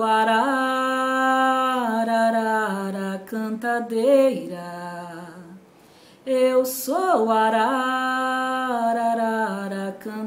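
Unaccompanied solo voice singing a slow chant in two long phrases of held notes, each opening with an upward slide, with a short break between them about six seconds in.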